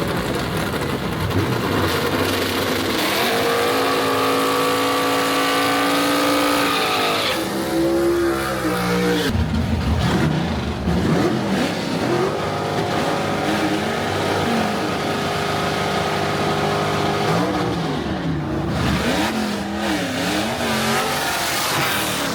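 Drag-race car engines running loud at the strip. Engine pitch is held high for a few seconds, then drops away, followed by repeated quick rises and falls of throttle revving.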